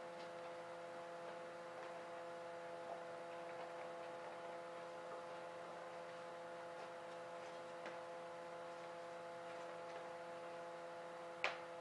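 Steady hum running throughout, with a few faint ticks and one sharper click near the end as hands work the ears of a lynx hide hanging from a string.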